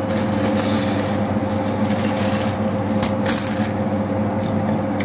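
Clear plastic packaging rustling and crinkling in a few short spells as a tap water filter part is handled out of its bag, over a steady electrical hum.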